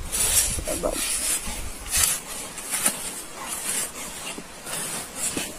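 Metal shovel blade scraping and digging into dry, gravelly soil in repeated strokes, about one a second.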